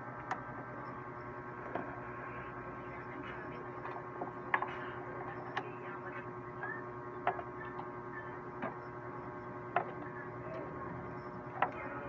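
Scattered light clicks and knocks, about nine in all, as parts are handled and fitted back into an open desktop computer case, over a steady electrical hum.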